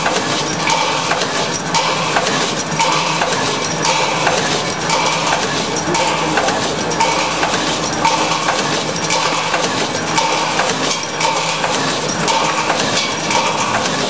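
Natural-gas pipe clamp forming machine running, its steel tooling clanking and clinking in a steady repeating cycle of about one stroke a second over continuous machine noise.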